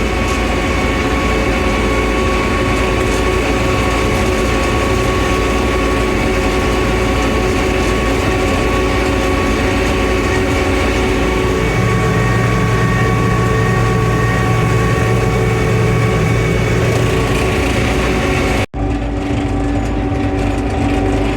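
Gleaner M3 combine running down the road: a steady diesel engine drone with a constant high whine, the low rumble growing stronger for about five seconds past the middle. Near the end the sound cuts abruptly to another steady engine.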